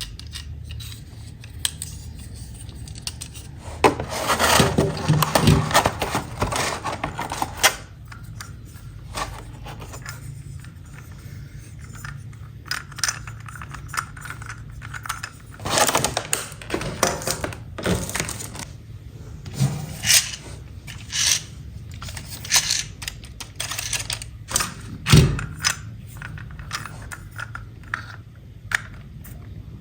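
Hands unboxing a plastic toy: packaging and plastic pieces scraping, rustling and clicking in irregular bursts, with a sharper knock near the end.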